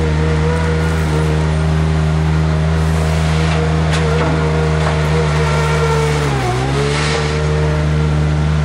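Engine of an Avant compact articulated loader running steadily at a high, even speed as the machine drives and works its bucket. About six seconds in, its pitch sags briefly and then recovers.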